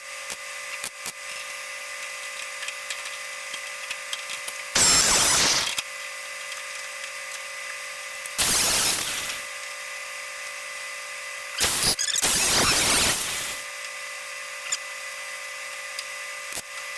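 Three tack welds on a sheet-metal patch panel, each a short crackling burst of welding arc. The first two last about a second and the third about two seconds. A steady faint hum runs underneath.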